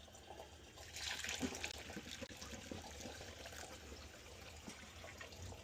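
Water being poured into a furnace condensate drain pipe, trickling and running through it as it flushes out a clog; the flow gets louder about a second in.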